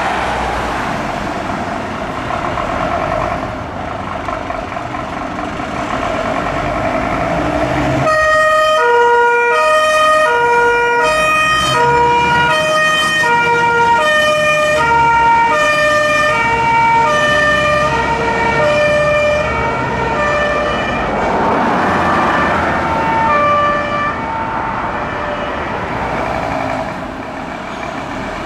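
Fire engine's old-style two-tone siren, alternating between a high and a low note about every half second, loud from about eight seconds in after a few seconds of traffic noise. It fades as the truck passes, leaving diesel engine noise near the end.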